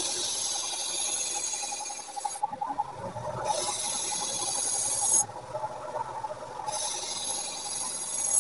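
A powered grinder removing steel from a blade blank cut from a car leaf spring, in three passes of about two seconds each. Between the passes the motor keeps running steadily.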